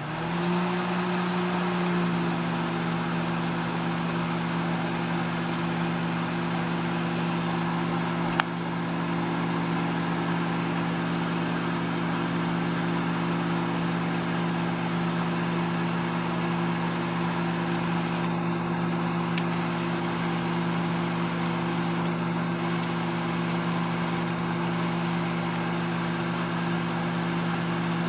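Microwave oven starting up and running: a steady electrical hum over the whir of its fan, with one sharp click about eight seconds in.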